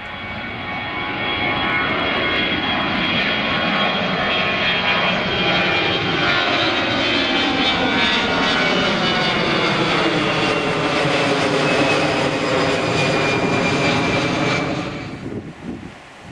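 Twin-engine jet airliner climbing out after takeoff and passing overhead: the jet engine noise builds over the first couple of seconds and holds loud, with a high whine and tones that slowly sink in pitch as it passes. It cuts off about fifteen seconds in, leaving a much quieter background.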